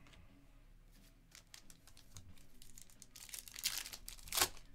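Trading cards being handled, with scattered light clicks. Then a foil trading-card pack wrapper crinkles and tears open, with the loudest crinkle near the end.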